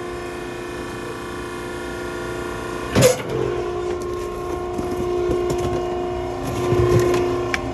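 Maren baler's hydraulic power unit running with a steady whining hum, with one sharp metallic knock about three seconds in.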